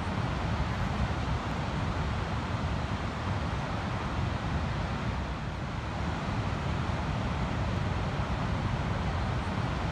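Ocean surf as a steady, even rush with no single wave standing out, over a low rumble of wind on the microphone.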